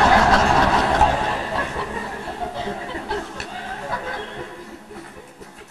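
Theatre audience laughing, loud at first and dying away over a few seconds, with scattered single laughs near the end.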